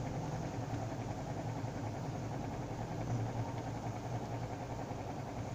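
Steady low mechanical hum of a running motor, unchanging in level.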